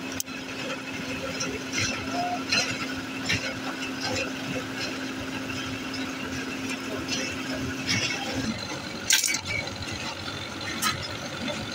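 Forge fire burning under forced air from a blower, with a steady hum that stops about eight and a half seconds in. Scattered crackles and clicks from the coals and the pliers holding the blade.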